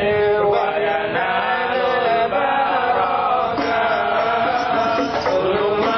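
Arabic shalawat, a sung praise of the Prophet, chanted in long held melodic lines that glide from note to note.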